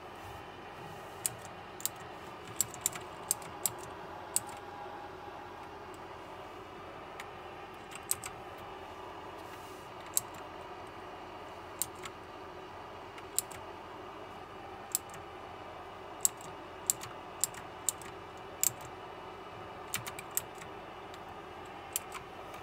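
Single key presses on a KLIM Domination mechanical keyboard with blue switches: sharp, separate clicks at irregular intervals, some in quick pairs, rather than continuous typing. A steady low hiss runs underneath.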